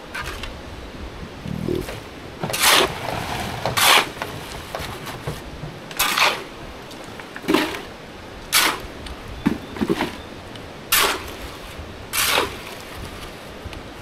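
Workers' tools scraping and knocking as concrete is placed into a column form: about eight short, noisy strokes at uneven intervals.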